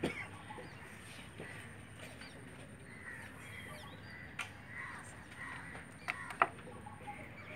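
Crows cawing repeatedly in short calls over steady open-air background noise, with a few sharp clicks, the loudest about six and a half seconds in.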